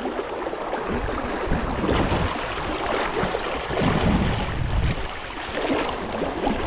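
Fast-flowing river water rushing and splashing around a wading angler, with uneven low rumbling buffeting the microphone.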